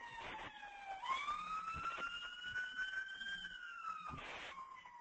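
Emergency-vehicle siren wailing, its pitch sliding down, climbing again from about a second in, then falling in the last part, picked up over an open microphone on a web-conference line.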